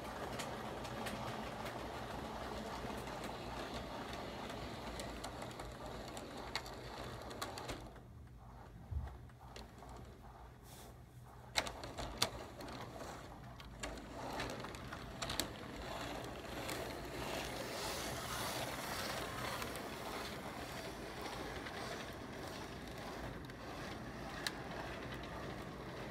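HO scale model train cars rolling along the track, a steady mechanical clatter of wheels on rails. It drops away for a few seconds about a third of the way in, then comes back with a few sharp clicks.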